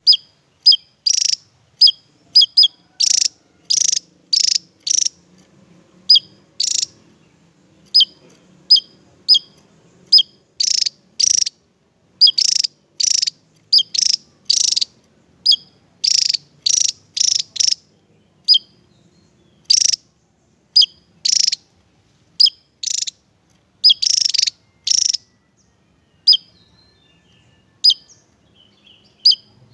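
Javan tesia singing: a long run of short, sharp, high-pitched notes in quick irregular clusters, with a few brief pauses.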